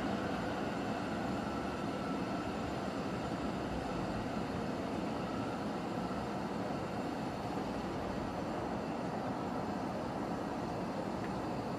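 A steady, even rumble and hiss with no distinct bangs standing out.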